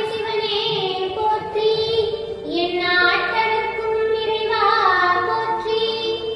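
A woman oduvar singing a Tamil temple devotional hymn solo, in long held notes that bend and glide, phrase after phrase.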